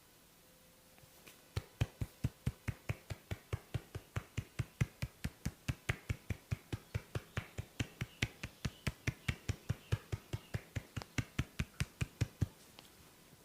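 A barber's hands striking the head in a fast, even rhythm during a head massage, about four to five sharp slaps a second. The strokes begin about a second and a half in and stop about a second before the end.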